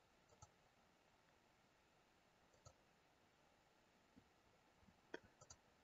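Near silence broken by a few faint computer mouse clicks, a couple of seconds apart, the clearest one near the end.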